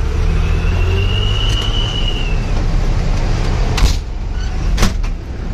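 Truck engine running steadily under way, with a faint high tone drifting for about two seconds early on and two sharp knocks about a second apart near the end.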